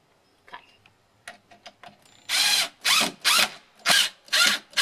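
Cordless drill driving screws into a plywood bat-house roof. The trigger is pulled in short bursts, about six in quick succession, starting about two seconds in after a few faint clicks.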